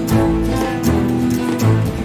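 Music led by plucked guitar notes over low held tones, with regular percussive hits.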